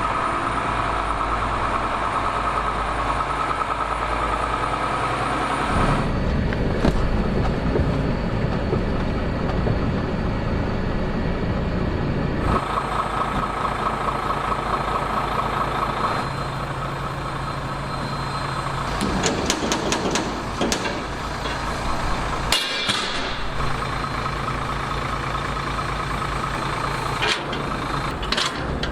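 Heavy truck diesel engine running, in several short stretches that change abruptly from one to the next, with a few sharp clicks and hisses near the middle and again near the end.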